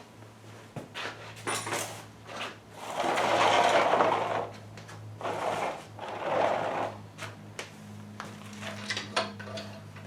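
Workshop handling sounds on an engine being turned over for oil pan removal: scattered metal clicks and two longer scraping or rubbing noises, the first the loudest, over a steady low hum.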